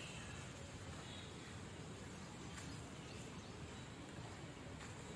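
Faint, steady outdoor background noise with a few faint, short bird chirps.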